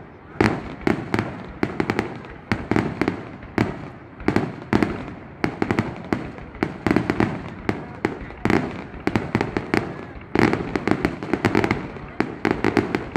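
Fireworks going off in rapid, irregular bangs and crackles, several a second, with brief lulls between clusters.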